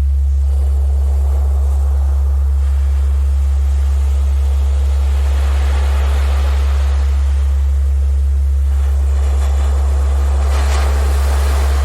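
A steady, loud, deep tone, a generated Rife-frequency tone, over ocean surf whose waves swell about five seconds in and again near the end.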